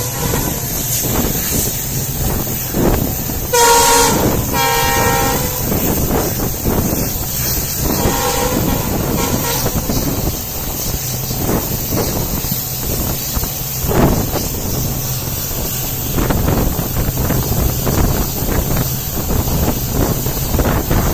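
Passenger train running behind an EMD WDP4D diesel locomotive: a steady rumble of the coach on the track with the locomotive's engine humming. The locomotive horn sounds in two short blasts about four seconds in, then more faintly once near eight seconds.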